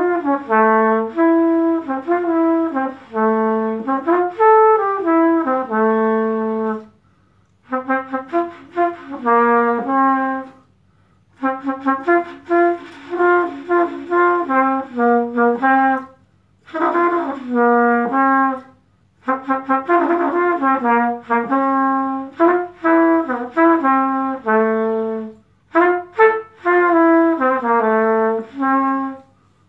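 Unaccompanied trumpet playing a slow melody in phrases of held and moving notes, with short pauses for breath between phrases.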